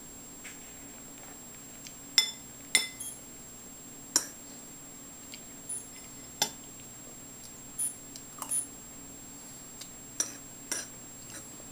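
A metal utensil clinking against a bowl as a child is fed: about six sharp clinks at irregular intervals of one to a few seconds, each with a brief ringing tone.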